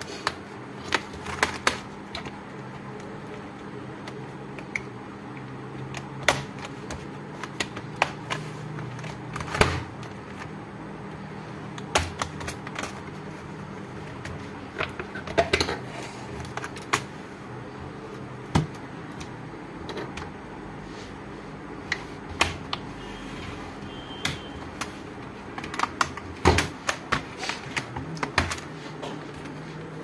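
Irregular plastic clicks, snaps and knocks as hands pry loose the bottom cover of a Lenovo ThinkPad T580 laptop, in scattered clusters over a steady low hum.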